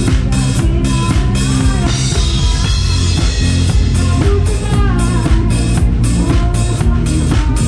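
Live band playing a pop-rock medley, the drum kit driving a steady beat of kick, snare and cymbals under pitched instruments. About two seconds in the drum hits thin out for a couple of seconds, then the full beat comes back in.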